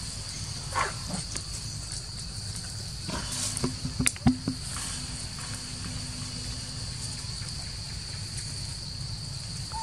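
Insects drone steadily and high-pitched. A few sharp knocks and rustles come about three to four seconds in, as a macaque climbs a tree trunk.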